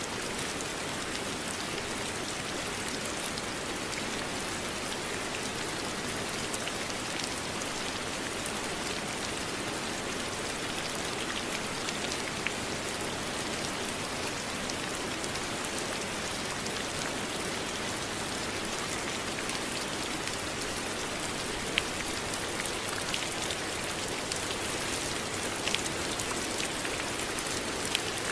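Steady rain falling on a surface, an even hiss with the odd sharper drop standing out here and there.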